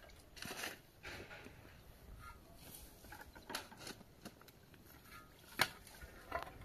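Long-handled digging tool striking and scraping dry, stony earth: a handful of irregular sharp chops, the sharpest about five and a half seconds in.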